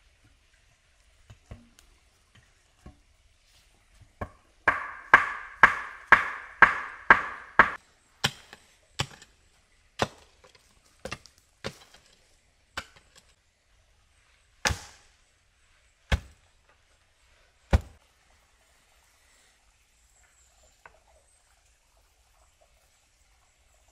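Wood being chopped: a quick run of about eight sharp blows, roughly two a second, then slower, more spaced-out strikes that stop several seconds before the end.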